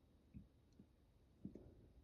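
Near silence broken by three faint, soft clicks.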